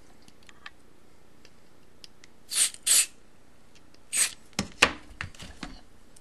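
Aerosol contact cleaner sprayed in three short hissing bursts into a potentiometer to clean it, followed by a few sharp clicks and knocks, the loudest about three-quarters of the way through.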